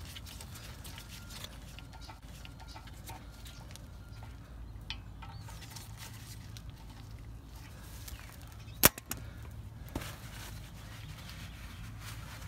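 Hands working on a brake rotor and hub: quiet small taps and handling noises, with one sharp click a little before nine seconds in and a smaller one about a second later, over a steady low hum.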